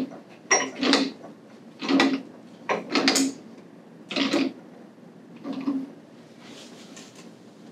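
Threaded metal pipe nipple of an alarm check valve's trim being screwed by hand into the valve body's port: a short rasp of metal on metal with each turn, about once a second, dying away about six seconds in.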